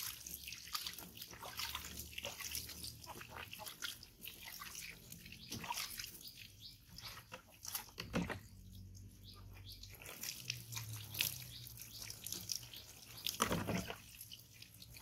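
Water splashing and dripping as a baby macaque is scrubbed and rinsed with water poured from a plastic dipper, with a lot of small wet crackles and two louder splashes, about eight seconds in and near the end.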